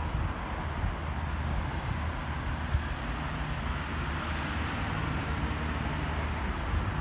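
Road traffic on a city street: a steady mix of tyre noise and engine hum from vehicles passing.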